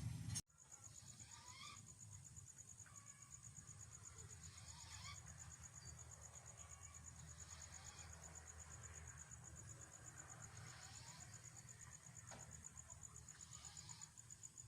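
Near silence: a faint low hum and a thin, high-pitched tone pulsing rapidly and evenly, with a few faint short chirps.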